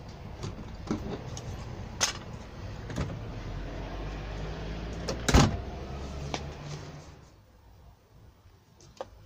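Scattered clicks and knocks of hands and tools working a stainless steel door kick plate, the loudest a sharp knock about five seconds in, over a low steady hum that dies away about seven seconds in.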